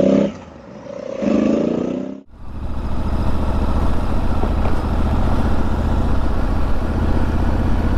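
Honda Africa Twin parallel-twin motorcycle engine accelerating in two short bursts of rising pitch. After a sudden cut about two seconds in, the engine runs steadily under riding noise at road speed.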